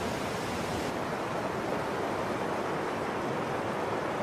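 Steady rush of river white water tumbling over rocks in rapids.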